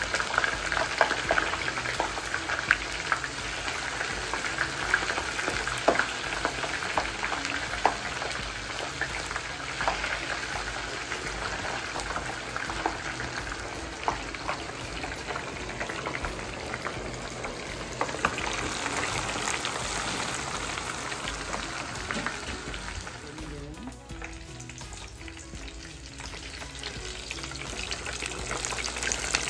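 Food frying in hot oil: a steady sizzle with frequent sharp crackles and pops, easing off for a few seconds near the end before building again.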